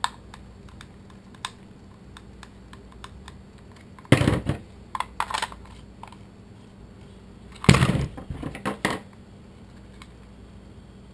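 Plastic clicks and knocks from a Thermacell mosquito repeller being screwed together and handled. Scattered small clicks give way to two louder bursts of clattering, about four and about eight seconds in.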